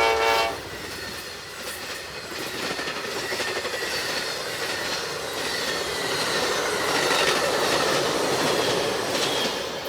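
Amtrak passenger train passing, its railcar wheels rumbling and clicking over the rail joints, the sound building and then easing as the cars go by. A locomotive horn blast cuts off about half a second in.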